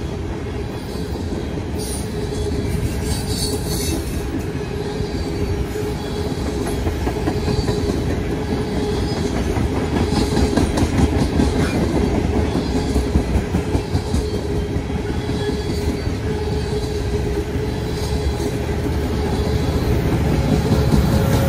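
Tank cars of a freight train rolling past: a steady rumble of steel wheels on rail, with regular clatter over rail joints and a faint steady wheel squeal. Near the end the low rumble builds as a diesel locomotive in the train draws near.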